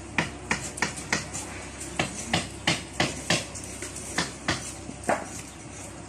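A quick run of sharp knocks or taps, about three a second, with a short break after the first second and a half, stopping about five seconds in.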